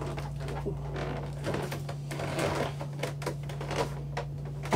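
Footsteps and light knocks going down a yacht's interior stairway, over a steady low hum, with one sharper knock near the end.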